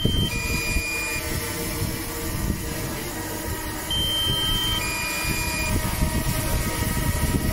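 Drone propellers humming steadily, with a two-tone warning beep, high then lower, repeating about every four and a half seconds: the low-battery alarm of a drone flying on a nearly flat battery.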